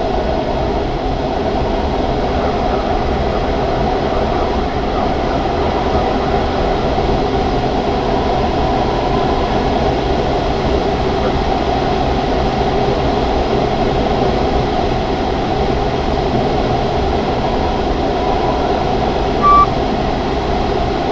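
Steady rush of air over the canopy of a Grob 103 glider in flight, heard inside the cockpit, with a single short beep near the end.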